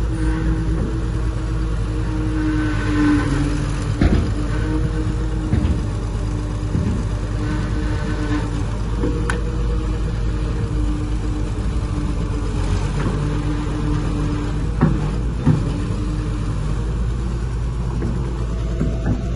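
Heavy diesel earth-moving machine running with a steady low rumble and drone, with a few sharp knocks scattered through.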